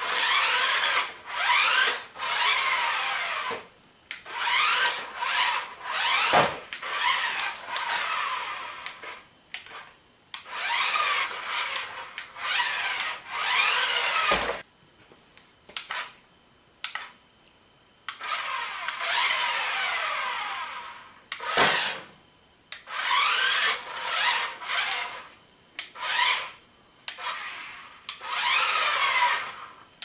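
Small electric drive motors of a toy RC stunt flip car whining in short bursts, pitch rising and falling as it speeds up, spins and stops on a hard floor, with a couple of sharp knocks as it tumbles or hits something.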